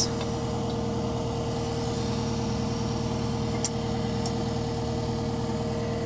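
Cat 259D3 compact track loader's diesel engine idling steadily, with a single sharp click about three and a half seconds in.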